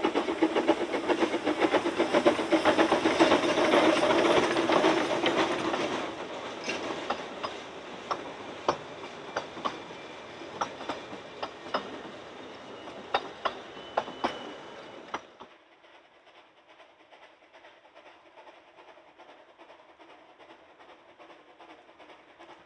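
Narrow-gauge Talyllyn Railway train running past: loud wheel and running noise that fades as the last coaches go by, leaving a string of sharp clicks as the wheels cross rail joints. About two-thirds of the way through it cuts off suddenly to a faint steady background.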